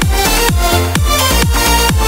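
Electronic dance music with a steady kick-drum beat under sustained synth chords.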